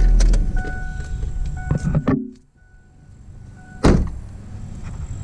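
2006 Kia Spectra's four-cylinder engine idling to push fresh oil through the new filter, then switched off about two seconds in and dying away quickly. A car door shuts with a single loud thud about four seconds in.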